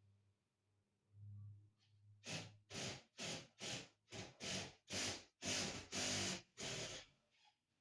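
A rapid series of loud breathy puffs, about eleven of them at roughly two a second, like heavy breathing or panting into the microphone.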